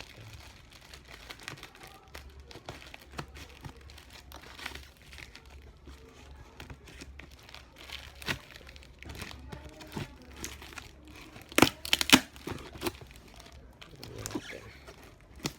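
Courier parcel packaging being crinkled and torn open by hand: an uneven run of crackling and rustling, with a louder cluster of sharp rips about three-quarters of the way through.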